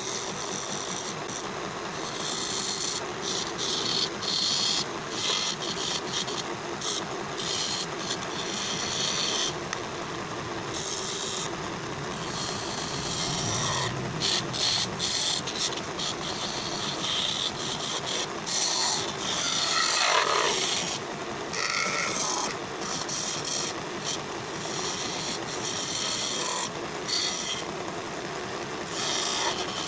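Wood lathe turning a wooden table leg, with a hand chisel scraping into the spinning wood in repeated passes that start and stop, over the steady running of the lathe's motor.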